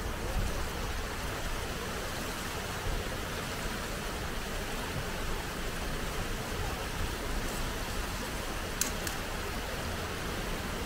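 Steady rush of flowing hot spring water, with two sharp clicks close together near the end.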